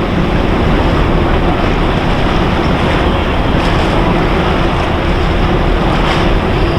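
Loud, steady outdoor rumble and hiss, mostly wind buffeting the microphone, with a faint steady hum underneath.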